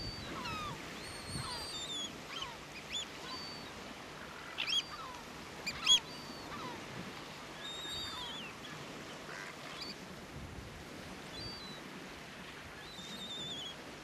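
Caspian terns calling: a string of short high calls, with two louder calls about five and six seconds in.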